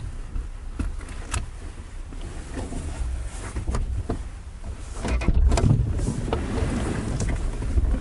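Car on the move: a steady low road-and-engine rumble with wind noise, broken by several sharp knocks and clicks, louder for a moment about five seconds in.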